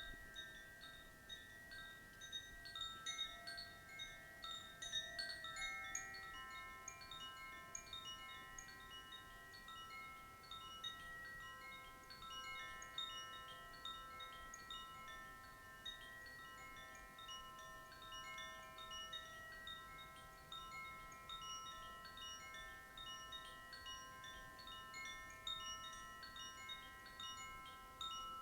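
Koshi chimes ringing softly. Many clear, sustained notes sound in random, overlapping succession with a light tinkle above them.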